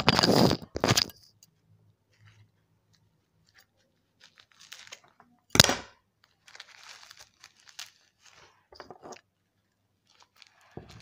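Plastic packaging being crinkled and pulled at by hand as it is worked open. There is a loud rustling burst at the start and a sharp crack about five and a half seconds in, with faint crinkling in between.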